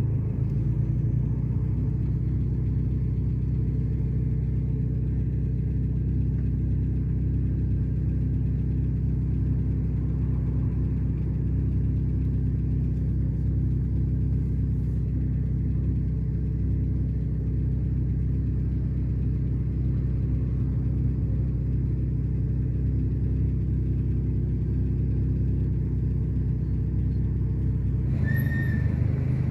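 Car engine running steadily, heard from inside the cabin as a low, even hum. Near the end the hum changes and a brief high tone sounds.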